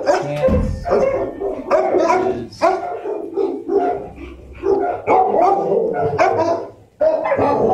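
Shelter dogs barking in their kennels, loud barks coming about twice a second without a break.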